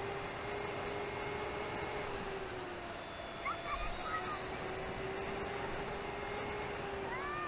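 A steady motor hum whose pitch drifts slowly up and down over an even background hiss, with a few short chirps about halfway through and again near the end.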